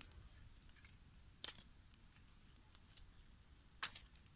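Two sharp wooden taps about two seconds apart, with a few fainter clicks, as a stick stirs food inside a green coconut shell, over a faint low rumble.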